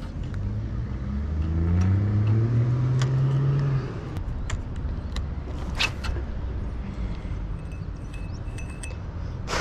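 A motor-vehicle engine speeds up, its pitch rising steadily for a little under four seconds before it drops away. A few sharp clicks follow, the loudest near the end.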